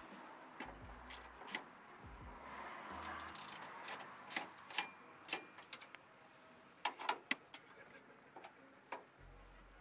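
About a dozen sharp clicks and knocks at irregular intervals over a faint hiss, with a close cluster of four about seven seconds in.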